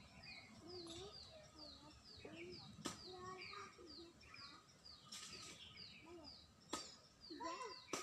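Faint background sound: a bird repeating a short, high, falling chirp about two and a half times a second, with faint voices underneath and two sharp clicks.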